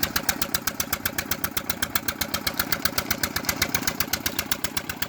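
Engine running steadily with a fast, even beat of about six or seven pulses a second.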